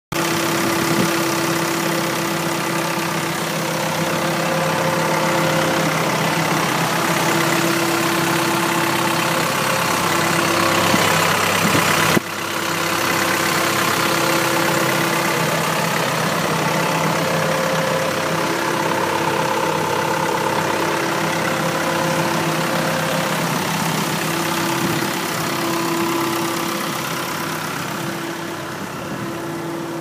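Terex backhoe loader's diesel engine idling steadily, heard up close at the open engine bay, with a steady hum over the engine noise; there is one brief drop-out about twelve seconds in.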